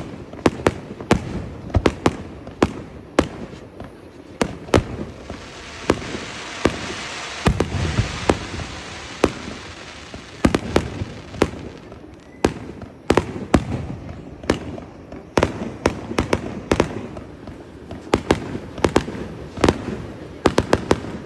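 Fireworks going off in quick succession: many sharp bangs and cracks, some close together, with a stretch of dense hiss from about six to ten seconds in.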